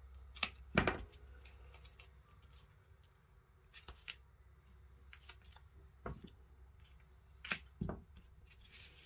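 Scissors snipping double-sided foam mounting tape off the roll, and the tape being laid and pressed around the edge of a card panel: a handful of short sharp snips and clicks, the loudest about a second in and a pair near the end.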